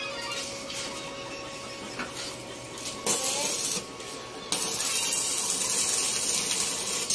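Electric arc welding on a steel-tube frame with a small inverter welder: a short burst of arc crackle about three seconds in, then a steady, louder crackling hiss from about four and a half seconds on.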